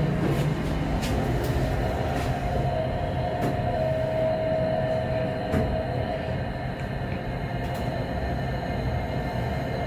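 Kone traction elevator car travelling upward between floors, heard from inside the cab: a steady low rumble and hum of the ride, with a whine that swells about four to five seconds in and then fades. A few light clicks come near the start.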